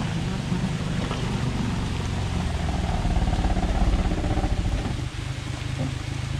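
Maruti Suzuki Omni van's small three-cylinder petrol engine pulling under load as the van climbs a rocky dirt track, getting louder about three to four seconds in and easing off near the end.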